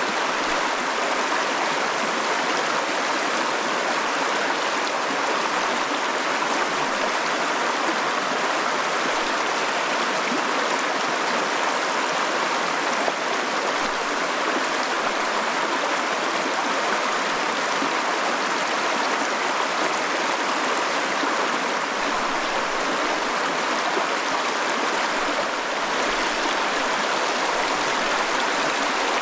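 Stream water rushing steadily, a constant even wash of flowing water.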